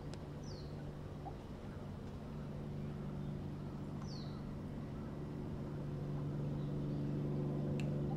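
A steady, low mechanical hum that slowly grows louder, with two short, high, falling chirps, one just after the start and one about four seconds in.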